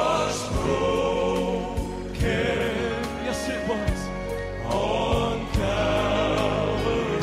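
Male gospel vocal quartet singing in close harmony, holding long notes, over piano and a steady beat of percussion hits.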